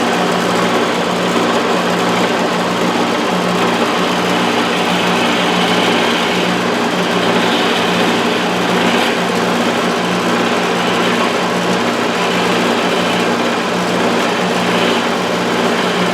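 Wood lathe running steadily with a steady motor hum, while a turning tool cuts the spinning wood of a finial, adding a hiss that swells at times.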